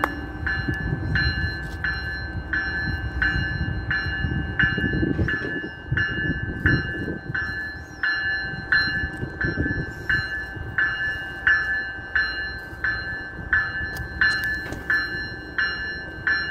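MBTA Commuter Rail train's warning bell ringing steadily, about one and a half strokes a second, as the train sets off. A low, uneven rumble from the train runs underneath, heavier in the first half.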